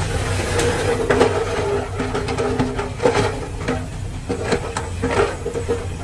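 Komatsu D41E crawler bulldozer working: its diesel engine runs steadily under a constant squeal, with irregular metallic clanks and rattles from the steel tracks.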